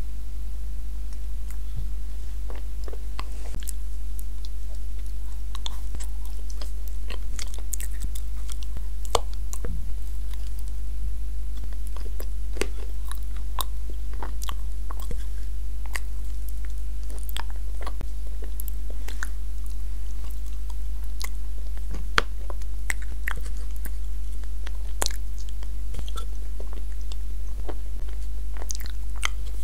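Close-miked chewing and wet mouth clicks of eating an edible clay paste, with scattered short crunches and clicks. A steady low electrical hum lies under it.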